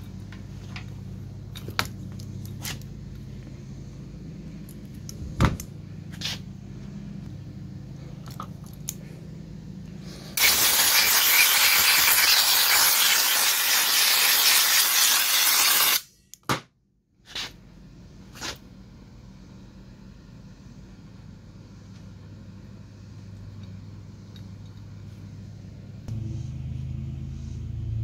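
Hand work on a Kawasaki FH451V small engine with its cylinder head off: scattered light clicks and scrapes of tools and metal parts over a low steady hum. About ten seconds in, a loud steady hiss runs for about five and a half seconds and stops abruptly.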